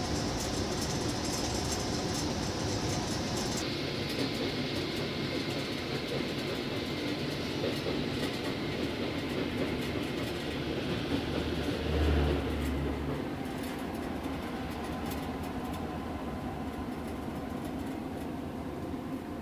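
Running noise inside a moving Humsafar Express sleeper coach: a steady rumble and hiss from the wheels on the track, with a brief louder low thump about twelve seconds in.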